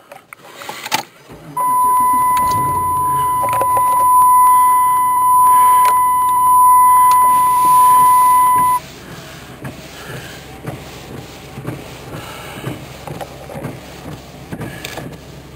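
A steady, high electronic tone sounds for about seven seconds and then cuts off suddenly, over a low vehicle rumble and scattered clicks.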